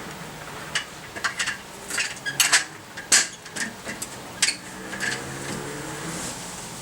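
A quick run of irregular metallic clinks and knocks, a dozen or so over about four seconds, over a steady low hum.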